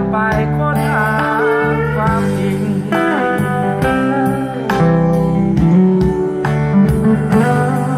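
Maze 3-inch full-range speaker playing guitar-led folk music, with a steady bass line and melody notes that slide in pitch.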